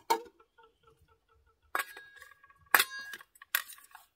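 A metal knife clinking against a small stainless steel mess-kit pan, several sharp clinks, one of them ringing on briefly past the middle.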